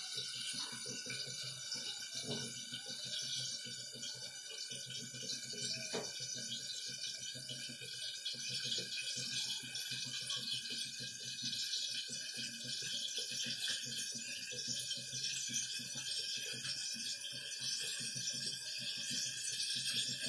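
Eggplant slices frying in oil in a lidded wok on a gas burner: a steady soft sizzle with faint crackles, getting a little louder after the first few seconds.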